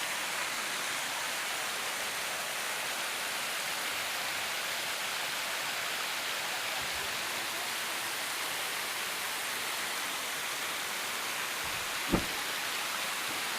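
Steady, even rush of water from the Bigăr waterfall. A single short low thump comes about twelve seconds in.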